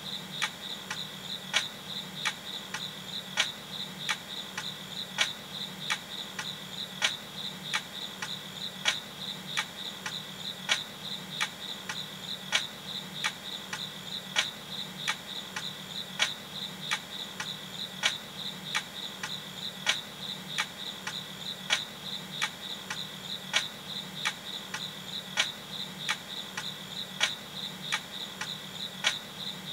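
Crickets chirping in a steady, high, pulsing trill, over a low hum, with a sharp tick about every two seconds.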